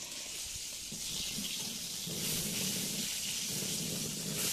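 Water running from a tap in a steady hiss, louder from about two seconds in.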